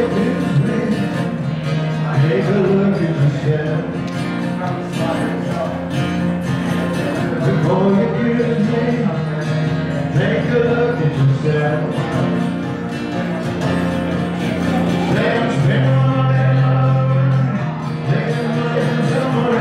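Live pub music: a singer with guitar accompaniment, playing a country-style song.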